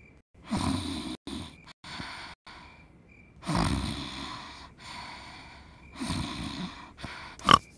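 A sleeping girl snoring loudly through an open mouth: three long snores about two and a half seconds apart. A short, sharp, loud sound comes near the end.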